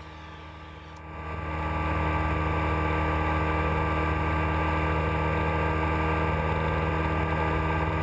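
Motorcycle engine running steadily at cruising speed on the open road, over a haze of wind and road noise. It swells up over the first couple of seconds, then holds an even drone.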